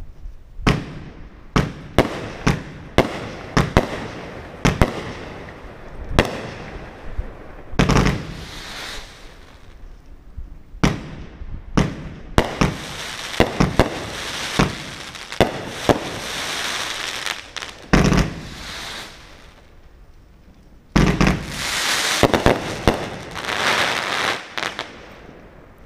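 Red Apple Twister FB2590 Firehawk firework firing a rapid run of shots, with many sharp bangs of launches and breaking stars. Long stretches of steady hiss come from the breaking effects, the last heavy volley about 21 seconds in, and it dies away at the end.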